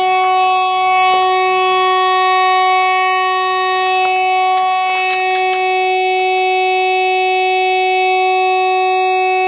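Electric fog horn unit from the Point Abino Lighthouse sounding one loud, unbroken blast at a single steady pitch, running on 24 volts after two failed capacitors were replaced.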